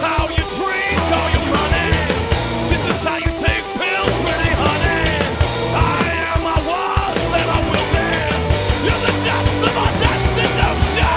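Punk rock song with a steady, driving drum beat and shouted vocals.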